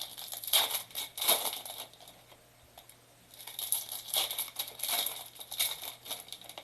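Plastic wrapping on trading card boxes and packs being crinkled and torn open, in two bouts of crackling with a short pause between them.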